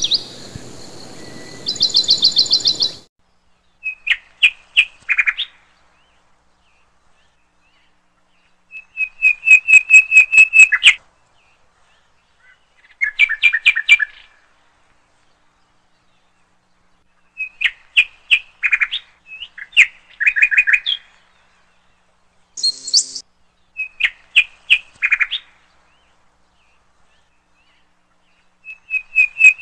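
Bird chirping in short phrases of rapid repeated notes and trills, each phrase a second or two long, about seven times with silent gaps between.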